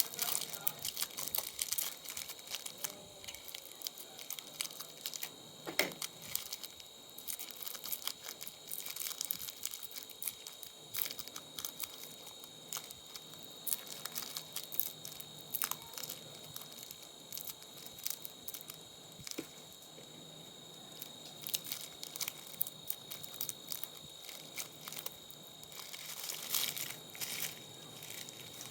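Irregular clicks, snaps and crackles of plastic and metal parts being handled and pried apart while an old monitor is taken to pieces, over a faint steady high-pitched tone.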